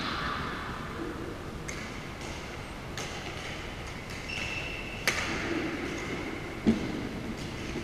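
Badminton rackets striking the shuttlecock in a rally in a large echoing gym: four sharp pings of the strings about a second and a half apart, the last two loudest. A brief shoe squeak on the wooden court comes between them.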